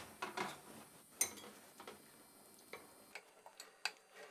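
Faint, irregular clicks and taps of a kitchen knife against a ceramic plate while a raw octopus is cut up, with the sharpest clicks about a second in and again near the end.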